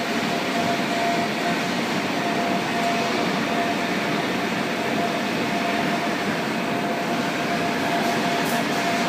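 Steady noise of running industrial machinery, with a constant mid-pitched whine over an even rush of noise.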